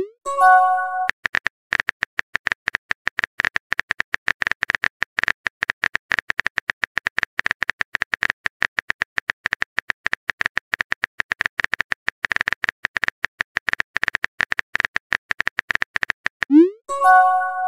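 Simulated phone-keyboard typing clicks from a texting-story app, a fast, irregular patter of several taps a second. Just at the start, and again near the end as the message is sent, a quick rising swoosh is followed by a short electronic chime of a few notes.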